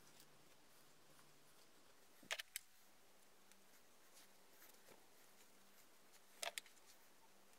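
Near silence: quiet room tone with a faint steady hum, broken twice by a quick cluster of two or three sharp clicks, about four seconds apart.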